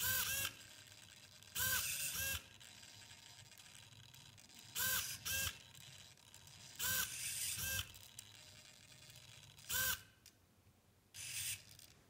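Servo motors of a small pen-drawing robot arm whirring in short bursts as the arm moves the pen. Each burst whines at a pitch that dips and rises, about six times, with quieter stretches in between.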